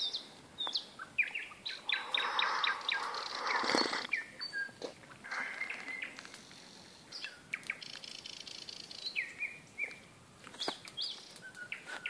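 A songbird singing: short high chirps, whistled notes and quick trills in separate phrases with pauses between them. A brief swell of rustling noise comes about two to four seconds in.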